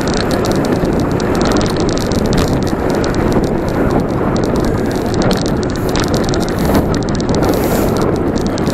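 Steady rush of wind on the microphone and tyre noise from a bicycle riding along a paved road.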